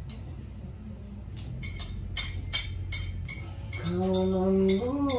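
A string of light clicks and clinks from small objects being handled, over a steady low hum. About four seconds in, a voice starts holding one long note that rises in pitch near the end.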